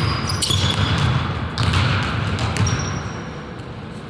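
Pickup basketball on a hardwood gym floor: short high sneaker squeaks and the thuds of the ball and feet, echoing in the hall. It grows quieter in the last second or so.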